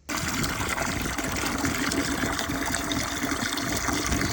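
Water running steadily into a container, filling it.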